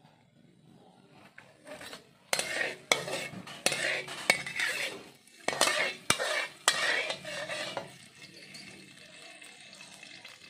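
Metal spatula stirring and scraping in a pan of hot oil: a run of sharp clanks with scraping, about one every half second, starting a couple of seconds in, then a faint steady sizzle for the last couple of seconds.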